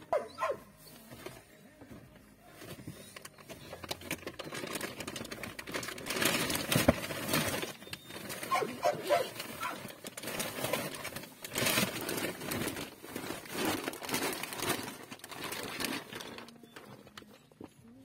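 Shopping bags and packages rustling and knocking as they are handled in an open car boot, with a dog heard now and then.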